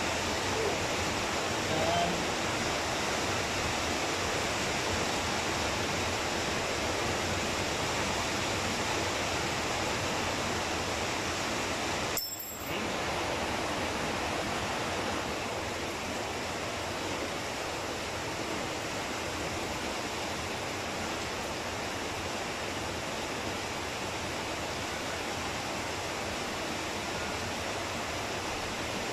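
Steady, even rushing hiss with no distinct knocks or clicks, cutting out for a moment about twelve seconds in.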